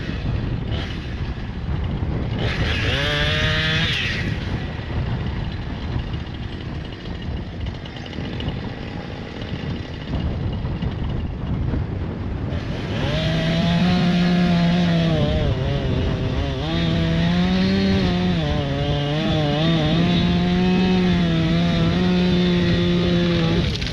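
Chainsaw revving briefly about three seconds in, then running low amid wind noise. From about halfway on, it runs at full throttle cutting into a small tree, its pitch dipping and wavering as the wood loads the chain.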